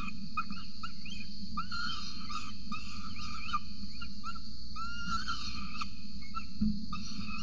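Young peregrine falcon begging while being fed, a rapid run of short calls that bend in pitch, a few each second.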